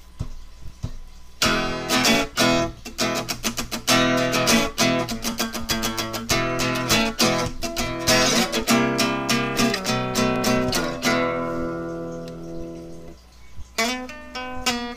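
Intro music on acoustic guitar, strummed and picked in quick rhythmic strokes. Near the end a chord is left ringing and fades for a couple of seconds, then the playing starts again.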